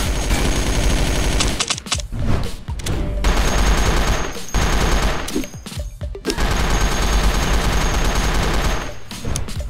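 Rapid automatic gunfire in long bursts, breaking off briefly about two seconds in and again around five to six seconds in, with music beneath.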